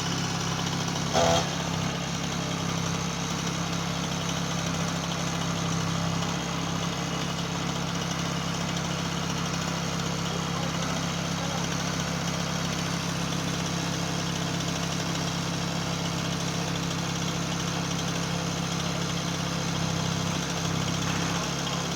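An engine idling steadily, with no revving, and one short sharp knock about a second in.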